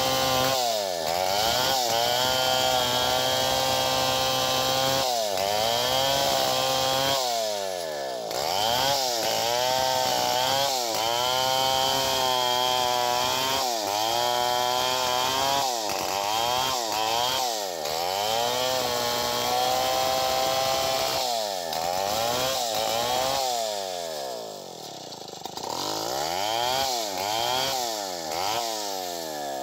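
Stihl two-stroke chainsaw cutting through an anonang log, the engine note dropping and climbing again every second or two. It eases off briefly about 24 seconds in, then picks up again.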